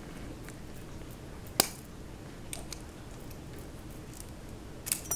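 Light metallic clicks of small switchblade parts being handled as the pin holding the blade to the handle is pulled out, with one sharper click about a second and a half in and a couple more near the end.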